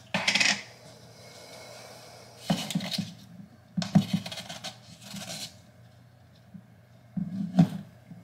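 Plastic supplement containers, a scoop and a shaker cup being handled on a counter: four short bouts of scraping and clatter.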